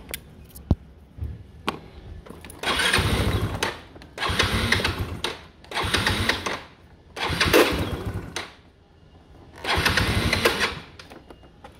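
Yamaha Cygnus X scooter's single-cylinder four-stroke engine revved in five short throttle blips, each about a second long, falling back to idle between them, as the carburettor is being tuned. A couple of sharp clicks come early on, before the revving.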